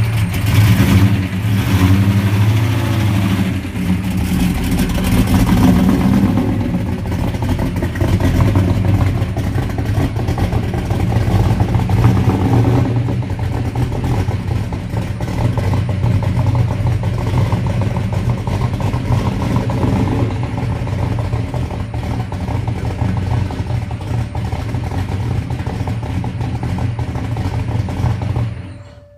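Solid-roller big-block Chevy V8 of a 1969 Beaumont, breathing through long-tube headers, an X-pipe and Spintech mufflers, running at low revs with some blips of throttle early on while the car creeps forward. The engine sound stops suddenly near the end.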